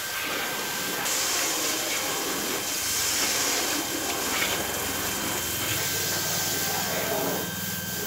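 Water from a garden hose spraying onto a car's wheel and bodywork: a steady hiss of spray, brighter from about a second in until near the end.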